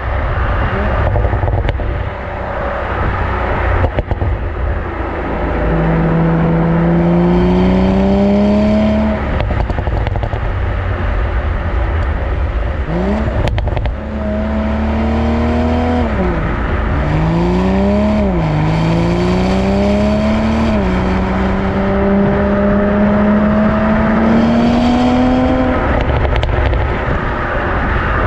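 BMW Z4 M40i's B58 three-litre twin-turbo straight-six driving hard: the engine note climbs in pitch several times and drops sharply between climbs, ending in a long steady climb. Road and wind rumble sits underneath.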